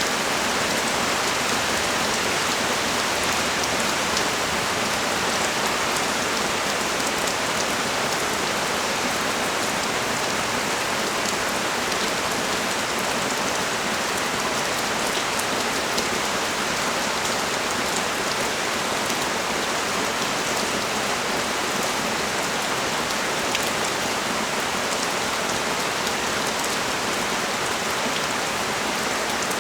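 Heavy rain pouring steadily onto a street and a balcony, a dense even hiss with the fine patter of individual drops through it.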